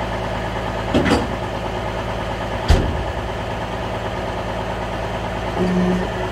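Medium-duty tow truck's engine idling steadily. Two sharp knocks come about a second in and near the middle, and a short low tone sounds near the end.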